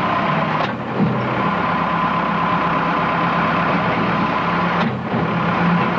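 An engine running steadily, with a low even hum under a noisy wash of sound.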